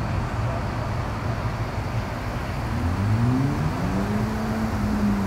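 An engine running with a low rumble, then speeding up with a rising pitch about three seconds in and holding the higher note near the end.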